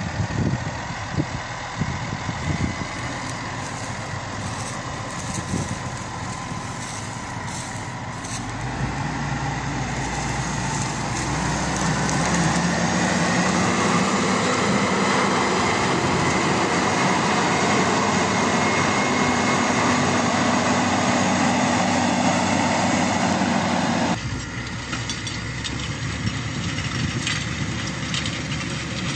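Farm tractor's diesel engine running steadily under load as it pulls a spring-tine stubble cultivator through wheat stubble. The sound grows louder as the tractor works close by, then drops suddenly about 24 seconds in and continues at a lower level.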